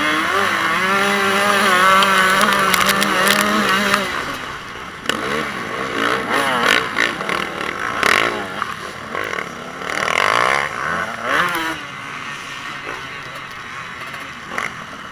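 Motocross bike engine under race load: held at steady revs for the first few seconds, then revving up and down repeatedly through the turns, and easing off in the last few seconds.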